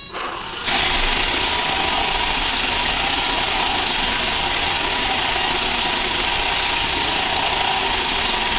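Roomba robot vacuum switching on less than a second in, then running steadily with an even whirring hiss and a faint steady hum.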